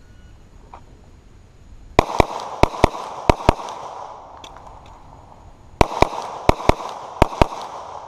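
Twelve shots from a 9mm semi-automatic pistol firing 115-grain steel-cased rounds: two strings of three quick pairs, the second starting about four seconds after the first, each string trailing off in echo.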